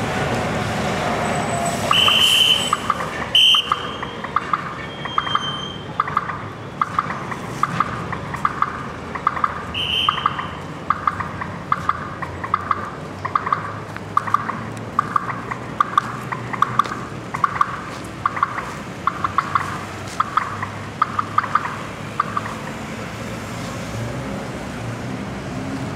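Street traffic hum under a pedestrian-crossing signal beeping steadily, about twice a second, that stops about 22 seconds in. Four short, shrill whistle-like blasts sound in the first ten seconds, and the third is fainter.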